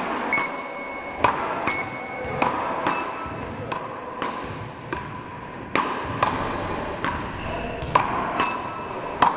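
Beach paddle rackets smacking a small ball back and forth in a fast rally, about a dozen sharp cracks that echo in a large sports hall. Short electronic beeps from the rally's hit-counting machine follow several of the hits.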